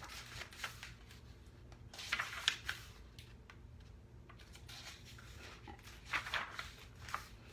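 Paper rustling and handling of a picture book as its pages are turned: a few brief papery rustles, about two seconds in and again near the end, over a faint steady low hum.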